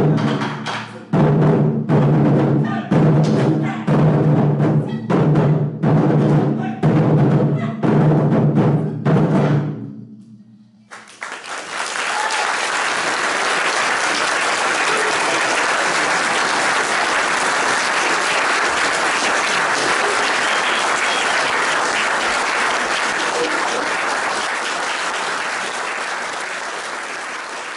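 Taiko barrel drums struck with sticks in a closing run of heavy, ringing strikes that stop about ten seconds in. After a moment of quiet, an audience applauds steadily, slowly fading near the end.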